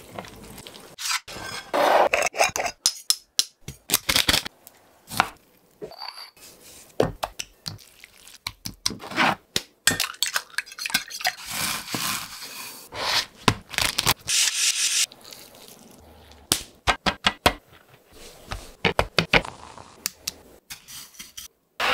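Close-up food-preparation handling sounds in a string of short cuts: raw chicken legs handled on a tray, an egg cracked into a glass dish, and chicken worked in wet egg batter. These come as many sharp clicks, taps, rubs and scrapes, separated by brief quiet gaps.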